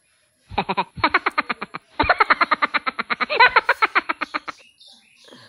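A sound effect added to the soundtrack: a rapid string of pitched, voice-like pulses, about ten a second, in two runs split by a short break about two seconds in. It stops about a second before the end, leaving only faint sounds.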